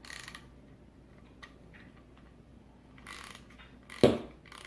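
Ratchet clicking as a 5 mm hex socket drives the screw into the DISA valve flapper, with a quick run of clicks at the start and a few scattered ones after. A sharp knock about four seconds in is the loudest sound.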